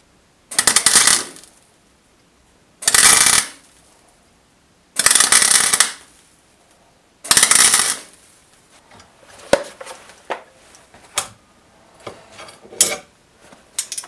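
MIG welder laying four short welds on a small steel sprocket, each a burst of arc noise under a second long, about two seconds apart. After the fourth weld comes a scatter of light metal clicks and clinks.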